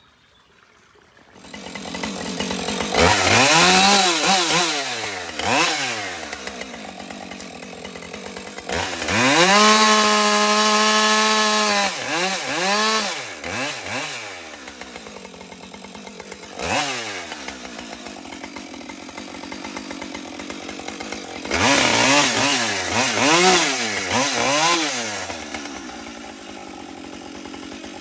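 Husqvarna 550xp two-stroke chainsaw coming in about a second and a half in, then idling with repeated throttle blips that rev it up and let it fall back. Held at high revs for about three seconds near the middle.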